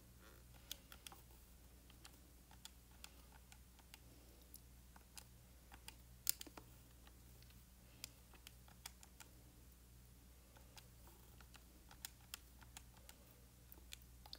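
Faint, irregular clicks of calculator keys being pressed while an answer is worked out, with one louder click about six seconds in, over a faint steady low hum.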